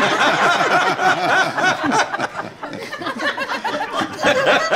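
Studio audience laughing, many voices at once.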